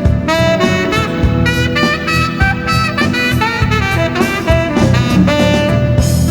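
Cannonball tenor saxophone playing a melody line of held and moving notes over a backing track with drums and bass.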